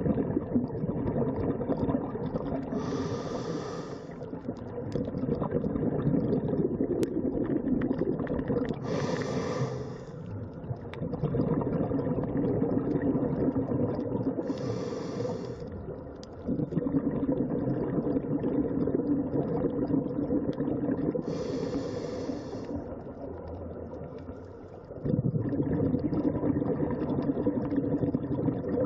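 Scuba diver breathing through a regulator: a short hiss at each inhalation, about every six seconds, each followed by the low bubbling rumble of the exhaled air.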